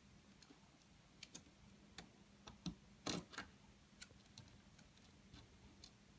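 Faint, irregular clicks of a screwdriver turning a small screw into a plastic alarm-panel housing to fix a replacement speaker in place, about a dozen in all, the loudest about three seconds in.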